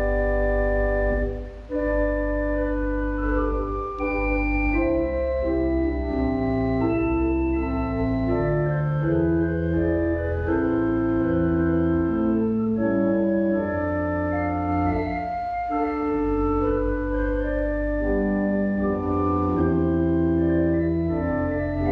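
Organ playing a slow piece of held chords over a sustained deep bass, the notes changing roughly once a second, with a brief break about a second and a half in.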